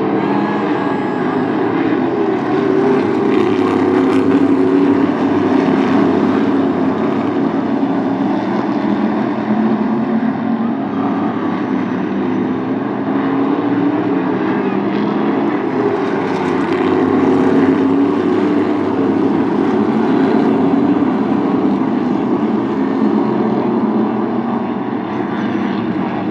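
A field of NHSTRA Modified race cars running laps on the oval. The engines drone steadily, their pitch rising and falling gently as the cars go round.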